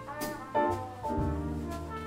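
Large jazz ensemble of brass, reeds and rhythm section playing held chords, with a trumpet playing in front. The chord changes about half a second in and again just over a second in.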